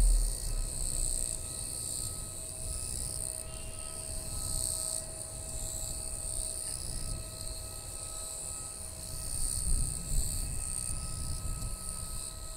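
An Airbus A320neo's jet engines rumbling at a distance, with thin steady engine tones and a swell of rumble about ten seconds in. A steady high buzzing of insects runs over it.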